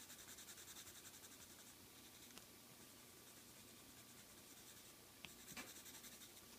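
Faint scratching of a colored pencil shading on a painted ornament: quick, even back-and-forth strokes for the first second and a half or so, then softer, with a couple of light taps near the end.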